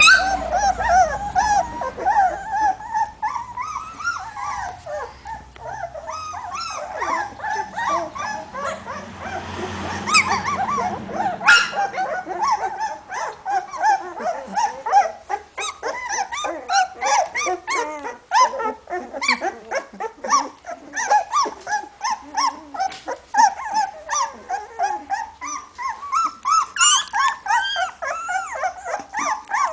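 Litter of two-week-old hovawart puppies squeaking and whimpering without pause, many short high cries overlapping one another.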